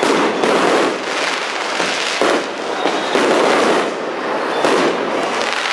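Fireworks going off in quick succession: a dense, unbroken run of pops and bangs from rockets launching and bursting overhead.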